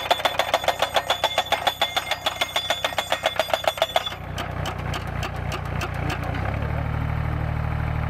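YBM-3000 solar pile driver's hydraulic hammer pounding a steel post into the ground, about seven ringing blows a second, stopping abruptly about four seconds in. The machine's engine then runs steadily and gets louder about six and a half seconds in.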